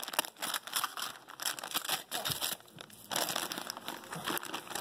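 Shiny foil Christmas wrapping paper crinkling and being torn open by hand, in irregular crackles with a short lull a little past two seconds in.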